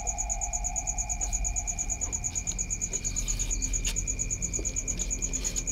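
Crickets chirping in a fast, even, high-pitched pulse, with a steady low hum beneath.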